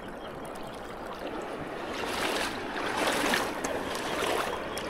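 Creek water splashing and sloshing as a hand reaches into it beside a small boat, over the low rush of the stream; the splashing picks up about two seconds in.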